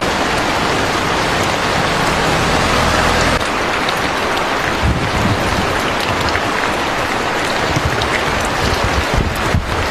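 Rain falling steadily in a dense hiss, with scattered separate drop taps heard more in the second half.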